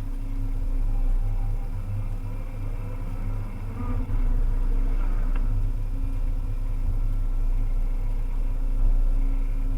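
Volvo EC300E excavator's diesel engine running steadily at work, with a brief click about five seconds in.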